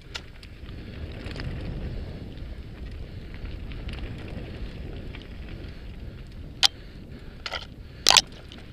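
Mountain bike rolling fast down a rocky dirt singletrack, heard from an action camera on the bike: a steady rumble of tyres on gravel and wind, with a few sharp rattling knocks in the second half as the bike jolts over stones.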